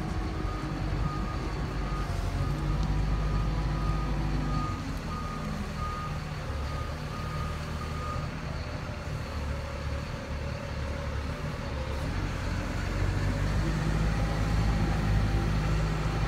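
Large forklift's engine running as it carries a boat on its forks, with a repeated warning beep that stops about eight seconds in. The engine grows louder near the end.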